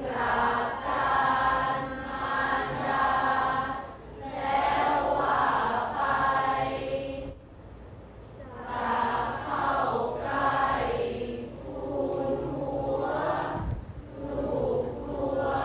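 A group of students recites a four-line Thai klon suphap verse aloud in unison, in the melodic chanted reading style, phrase by phrase with short breaths between lines.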